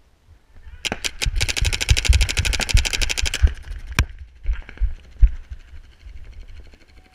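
Paintball marker firing: three single shots, then a rapid string of shots for about two seconds, and one more lone shot about four seconds in. A few dull thumps follow.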